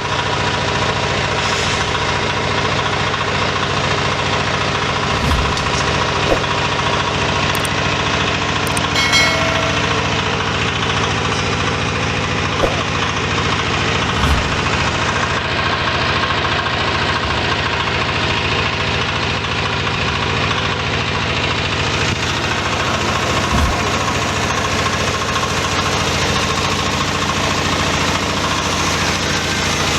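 Feed pellet-making machine running steadily under its motor, a dense mechanical drone with a handful of brief knocks scattered through it.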